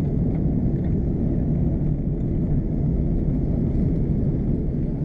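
Steady low cabin rumble of an Airbus A330-243 in flight, heard from a window seat: engine and airflow noise from its Rolls-Royce Trent 700 engines, even throughout with no distinct events.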